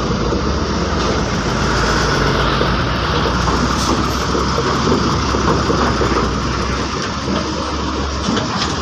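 Diesel truck engines running close by as loaded trucks roll over a ferry's steel loading ramp, a steady, heavy rumble with a low engine drone underneath.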